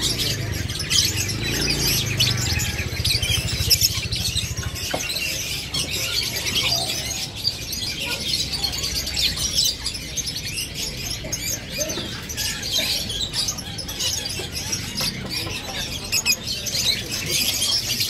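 Many caged birds, lovebirds among them, chirping over one another in a dense, high, continuous chatter.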